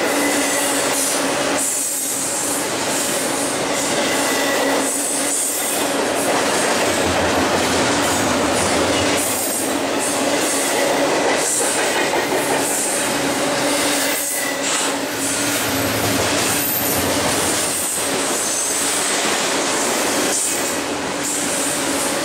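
Loaded double-stack intermodal well cars of a BNSF freight train rolling past at close range: steady loud rumble of steel wheels on rail with a thin, steady high wheel squeal and a knock every couple of seconds as trucks and car ends go by.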